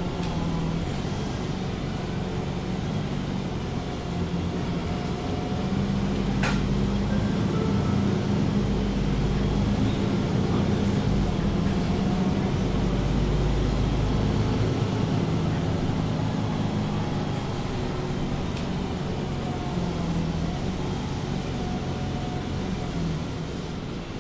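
MAN Lion's City G articulated city bus with a ZF Ecolife automatic gearbox under way, heard from on board: the diesel engine pulls harder and louder from about five seconds in to about fifteen, with its pitch shifting as it drives, then eases off. A single sharp click about six and a half seconds in.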